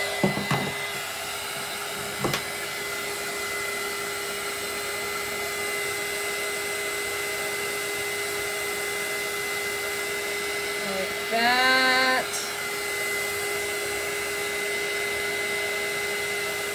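Small handheld craft heat tool blowing steadily, a fan whir with a steady hum, drying wet ink on canvas. A couple of light knocks come in the first few seconds, and a short voiced sound about a second long comes about two-thirds of the way through.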